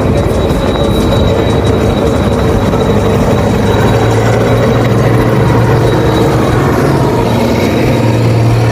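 Heavy farm machinery running steadily at work: a diesel engine hum with a mechanical rattle and a faint high whine, the engine note rising slightly about halfway through.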